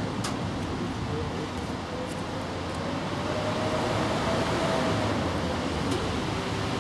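Steady background hiss and rumble, with a faint tone that slowly rises and then falls in the middle.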